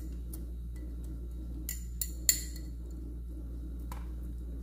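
A metal utensil clinking against a glass bowl as chopped green onion is scraped out of it: a few light clinks, three close together about two seconds in, the last the loudest, and a softer tap near the end.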